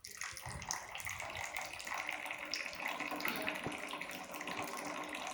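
Liquid running in a steady stream, like water from a tap or a drink being poured, starting abruptly and cutting off about five and a half seconds later.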